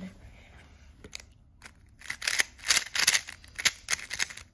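Plastic pieces of a magnetic MoYu speedcube clicking as it is turned: a few single turns in the first two seconds, then a fast run of turns.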